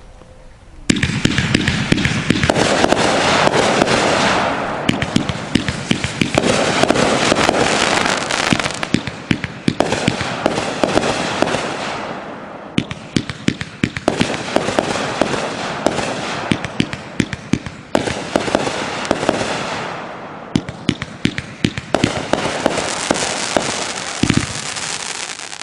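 A Hardcorepyro 'Surfer Girls' 33-shot 500-gram fireworks cake firing, starting suddenly about a second in. Shots launch and burst in quick succession over a dense, steady crackle of strobing stars, swelling and easing in waves with short lulls between volleys.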